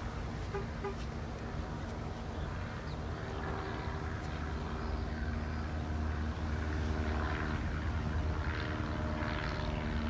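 Propeller engine of a banner-towing light plane overhead, droning steadily and growing louder in the second half.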